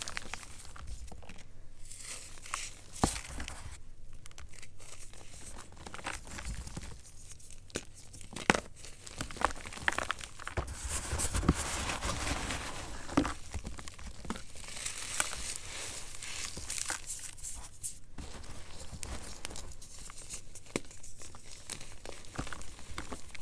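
Blocks of gym chalk crushed and crumbled by hand into a heap of orange chalk powder: continuous dry crunching and crackling with a few sharp cracks, busiest about halfway through.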